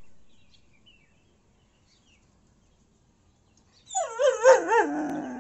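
German Shepherd giving one long whining howl about four seconds in, its pitch wobbling up and down several times as it slides lower.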